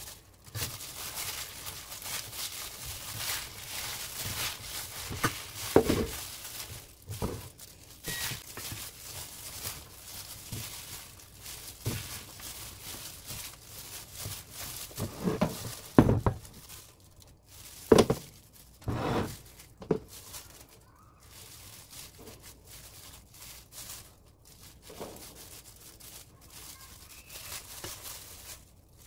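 Plastic-gloved hand tossing wet winter greens with chili seasoning in a stainless steel bowl: crinkling of the glove and leaves, with several sharp knocks against the bowl, the loudest a little past the middle.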